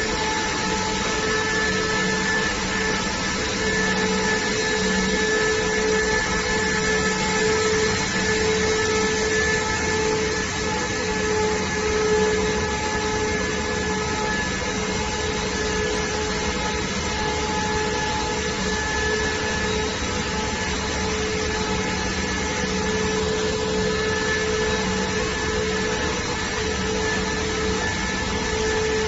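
Corrugated cardboard production line machinery running: a steady mechanical drone with several steady whining tones over it.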